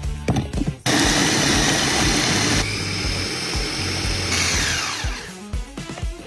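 An electric kitchen appliance motor switches on suddenly about a second in, runs loud and steady for a few seconds, then switches off, its pitch falling as it spins down.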